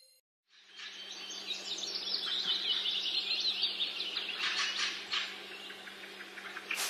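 Songbirds chirping densely, fading in about half a second in, over a steady low hum.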